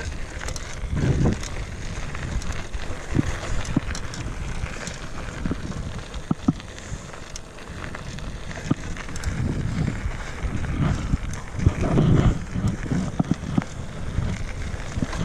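Mountain bike rolling along a dirt trail: a steady tyre-on-dirt rumble with scattered knocks and rattles from the bike over bumps, and wind buffeting the microphone.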